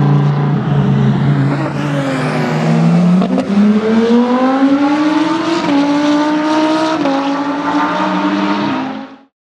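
Lamborghini Gallardo Reiter GT3's V10 engine running at steady revs for about three seconds, then accelerating hard out of a corner, its pitch climbing steadily with small steps through the rest. The sound cuts off about nine seconds in.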